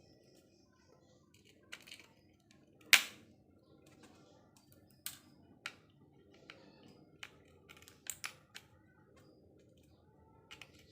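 Irregular light clicks and taps from hand work on small parts, with one sharp click about three seconds in and a quick pair of clicks about eight seconds in.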